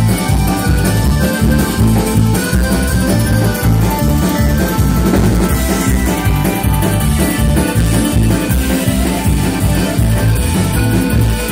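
Live folk-rock band playing an instrumental passage between sung verses: accordion carrying the tune over mandolin, acoustic and bass guitars and drums, loud and steady.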